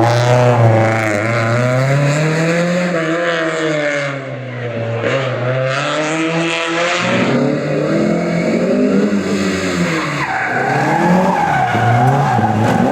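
Historic rally car's engine revving hard, its pitch rising and falling several times, with tyres squealing and skidding through a drift or burnout.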